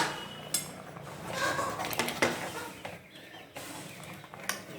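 A few sharp clinks and knocks of a spoon against a cooking pot as the potatoes in a simmering chickpea curry are checked for doneness.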